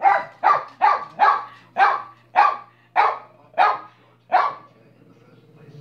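Small dog barking repeatedly: about nine barks in quick succession, roughly two a second, stopping about four and a half seconds in.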